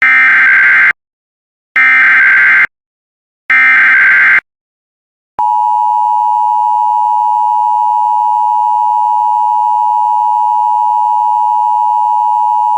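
Emergency Alert System signalling. First come three harsh digital SAME header bursts, each just under a second long and about a second apart; these carry the coded alert. About five seconds in, the steady two-tone EAS attention signal (853 and 960 Hz together) starts and holds without a break.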